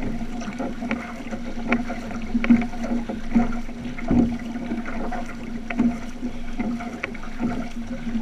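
Outrigger canoe crew paddling: blades dipping and pulling through the water in a regular rhythm of a little more than one stroke a second, with water washing along the hull. A steady low hum runs underneath.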